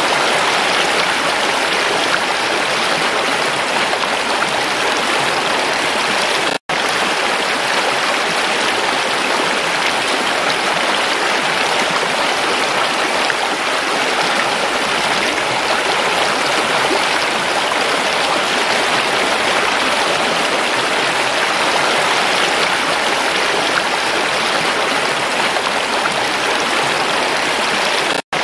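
Shallow rocky stream rushing over stones: a steady, even rush of water. It cuts out to silence for an instant twice, about a quarter of the way in and again near the end.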